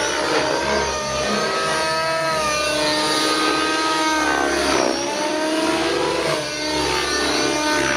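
O.S. MAX-55HZ two-stroke glow engine of a JR Vibe 50 RC helicopter running at high revs in 3D flight, its pitch repeatedly rising and falling as the helicopter manoeuvres.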